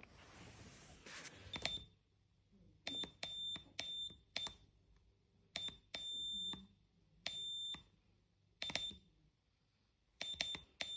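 Electronic buzzer sounding Morse code: a run of short and long high-pitched beeps (dots and dashes) in groups with pauses between letters, as code is keyed into an Arduino decoder. A soft hiss comes before the first beep.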